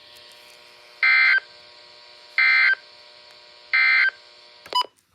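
Emergency Alert System end-of-message signal: three short bursts of SAME data tones, warbling between two pitches, about a second and a half apart, over steady radio hiss. A brief click follows near the end, then the audio cuts out.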